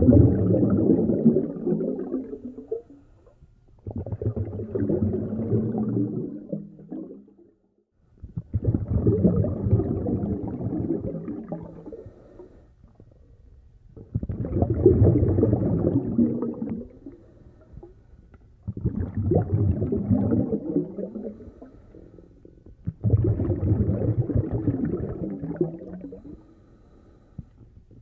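A snorkeler breathing through a snorkel, heard underwater: a low rushing breath about every four to five seconds, each lasting two to three seconds, six in all.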